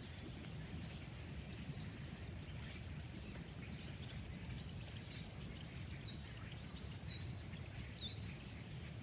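Faint outdoor ambience: many small birds chirping in short calls throughout, over a low steady rumble.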